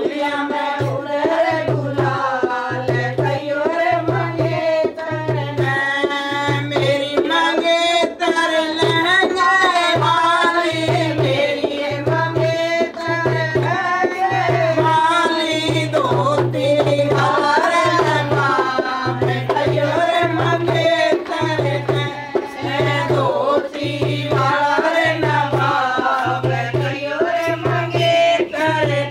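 Holi bhajan folk song: a voice singing over hand-drum accompaniment and a steady low beat.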